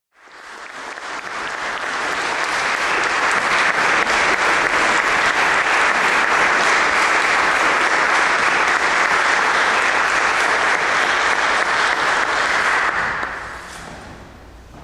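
Audience applauding: the clapping rises over the first few seconds, holds steady, then dies away about thirteen seconds in.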